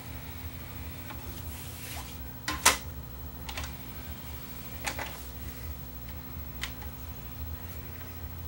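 CD tray of a Panasonic SA-CH11 bookshelf stereo being loaded: a disc is set into the open tray and the tray closes, heard as several sharp clicks and clunks, the loudest about two and a half seconds in. A steady low hum runs underneath.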